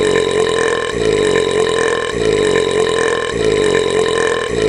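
A long, loud cartoon burp from a bearded hillbilly fish, held without a break for pitch. The same stretch seems to repeat about every second and a bit, looped on and on.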